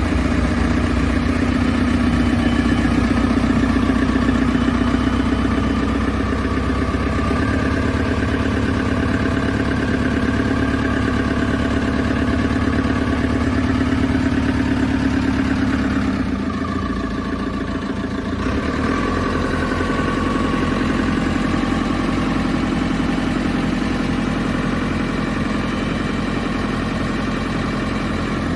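A JCB 3CX Sitemaster backhoe loader's diesel engine idling steadily. About sixteen seconds in its note drops a little and changes, then settles again.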